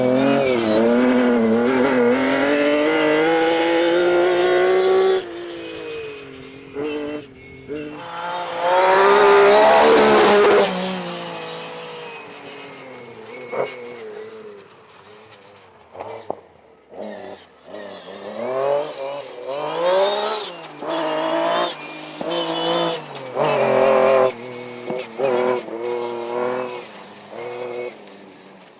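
Lancia Stratos rally car's Ferrari Dino V6 engine revving hard, its pitch rising and falling through the gears. It is loudest about ten seconds in, then comes on and off in short bursts of throttle with brief lifts between them.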